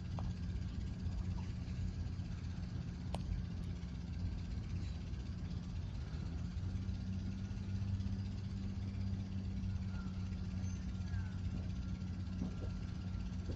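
Steady low drone of an engine, with one sharp click about three seconds in.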